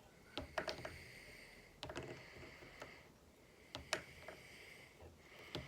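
Faint, scattered clicks and light handling noise from fly-tying tools and materials at the vise, about seven small ticks over several seconds.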